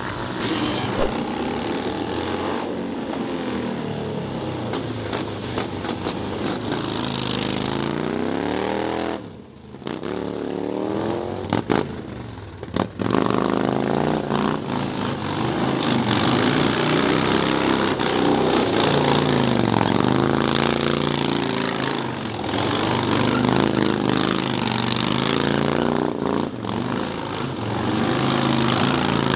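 V-twin cruiser motorcycle's engine revving up and falling back over and over as it is ridden through stunt manoeuvres. The sound drops away briefly about nine seconds in, then the revving picks up again.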